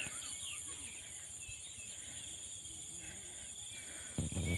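Steady high-pitched insect chorus over a rice paddy, with scattered bird chirps; a voice starts near the end.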